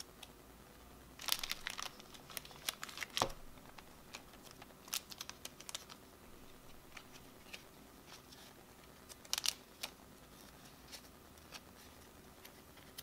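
Plastic card sleeves crinkling as trading cards are handled and slid into them: scattered crackles and small clicks, the loudest about a second in and again near nine and a half seconds.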